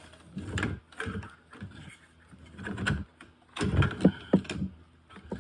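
Hands handling a handheld CB radio with its screws out, opening the plastic case: a few irregular knocks, clicks and scrapes, busiest about four seconds in.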